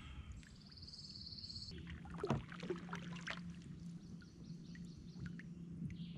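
Kayak paddle strokes, the blades dipping and splashing in the water, with the loudest splash a little past two seconds in.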